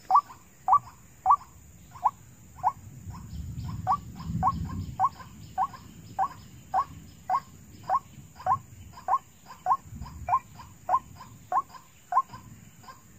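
White-breasted waterhen calling: short rising notes repeated evenly about twice a second, without a break. A low rustling rumble rises under the calls about three to five seconds in.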